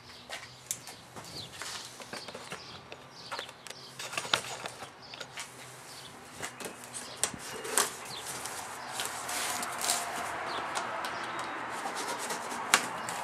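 A small knife slitting packing tape on a cardboard shipping box, with scattered clicks and scrapes of the cardboard. In the second half there is a steadier scraping rasp as the blade and hands work along the top flap.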